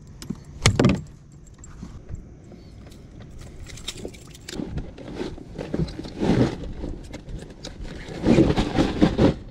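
A wooden fish club strikes a northern pike's head once, a sharp knock about a second in, dispatching the fish for keeping. Then come scraping, clattering and rustling as the fish, gripper pliers and gear are handled on a plastic kayak, loudest near the end.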